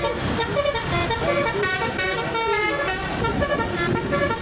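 Telolet horn playing a quick melody of short notes at changing pitch, over a low rumble.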